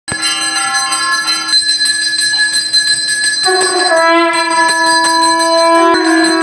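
Temple bells ringing continuously for a pooja, struck rapidly, over a sustained pitched tone that steps up to a new note about three and a half seconds in.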